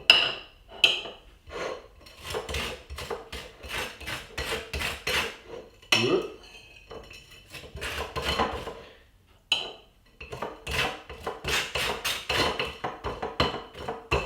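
A table knife spreading butter across crisp toast: repeated short scraping strokes, about two a second, with a few clicks of the knife against the plate, pausing briefly near the middle.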